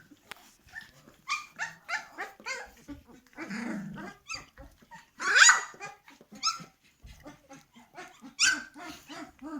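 A litter of 17-day-old puppies whining and yelping in many short, high-pitched calls, with the loudest yelps about halfway through and again near the end. In the last seconds a soft low sound repeats about three times a second under the calls.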